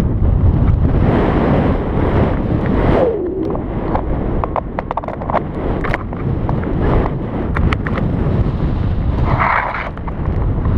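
Strong wind rushing and buffeting over the microphone in flight, an uneven roar with scattered crackles.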